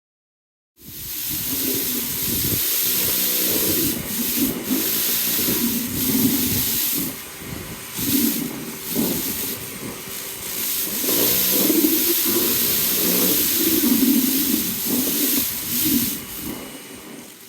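Kärcher K2 electric pressure washer spraying: a loud hissing water jet over the pump motor's hum, whose pitch wavers and dips now and then. It starts suddenly about a second in.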